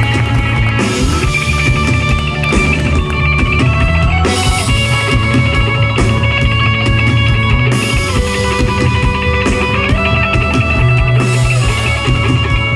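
Live rock band playing an instrumental break, with guitar notes held and bent over bass and drum kit.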